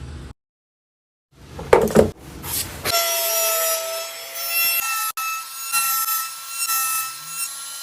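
A hand tool working wood: scraping and rubbing strokes, with a loud scrape about two seconds in and a steady grating, ringing rasp from about three seconds on. It comes in short cut-together bits that break off suddenly into silence.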